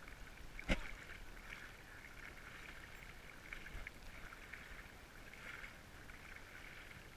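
Faint, uneven sloshing and lapping of shallow water, with one sharp knock about a second in.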